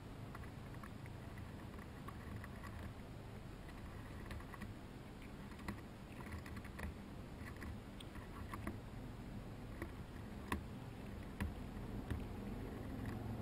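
Irregular light clicks and crackles of a chipmunk gnawing and pulling kernels off an ear of dried corn, with a few sharper clicks near the end, over a low steady rumble.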